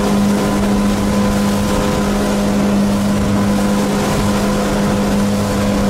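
Motorboat running at speed, heard from on board: a steady engine drone over a constant rush of wind and water.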